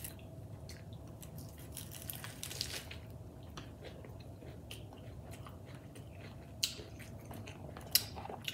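Close-up mukbang eating sounds: biting into and chewing a burger wrapped in crisp iceberg lettuce, a run of wet, crackly crunching with small clicks. Two sharper clicks come near the end.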